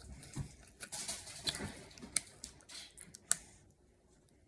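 Pop Rocks popping candy crackling while being eaten: a faint run of small, irregular clicks and crackles, with a couple of sharper clicks about two and three seconds in.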